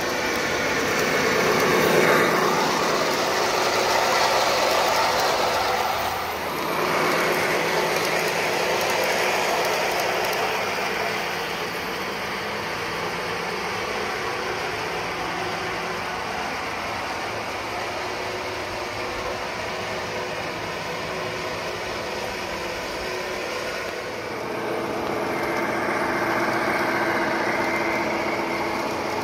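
A G-scale model train running on its track: the metal wheels of the locomotive and hopper cars roll along the rails, under the diesel engine rumble played by the MTH GE Dash 8-40C's onboard sound system. The sound swells twice as the train passes close by.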